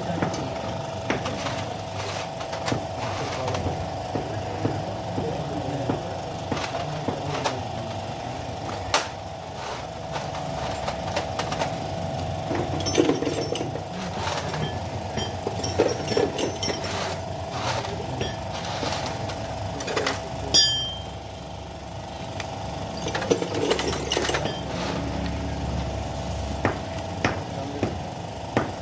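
Hand tools clicking and clinking irregularly on a Suzuki Alto 660cc engine as its camshafts are being unbolted, over a steady workshop hum. One sharp metallic clink rings out about twenty seconds in.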